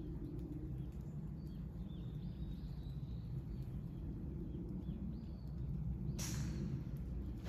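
Outdoor ambience: a low steady wind rumble with small birds chirping, a brief hiss about six seconds in, and a single sharp crack at the very end.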